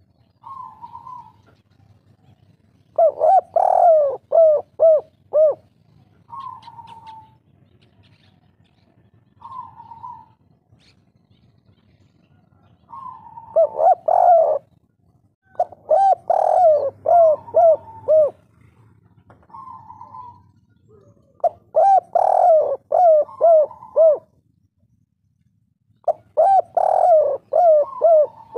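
Spotted dove cooing: several loud phrases, each a quick string of falling, rolling coo notes, with softer single coos in between. This is the 'kuk 3' song type kept and prized by Indonesian dove keepers.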